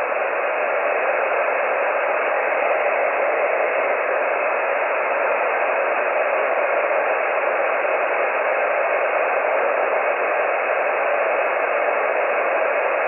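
Steady band-noise hiss from an HF transceiver receiving single-sideband on the 20-metre band with no station transmitting. The noise is held to the narrow voice passband of the SSB filter, with nothing above about 3 kHz.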